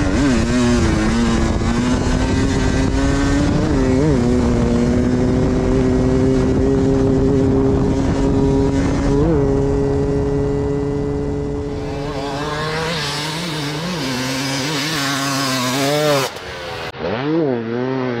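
Husqvarna 300 two-stroke enduro motorcycle engine running hard at a steady high pitch, with brief blips in the revs about 4 and 9 seconds in. After about 12 seconds the revs rise and fall repeatedly as the throttle is worked.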